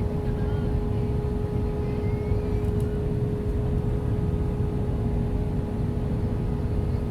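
Cabin noise inside an Airbus A320 descending on approach: a steady deep rumble of airflow and its IAE V2527E engines, with a constant hum tone running through it.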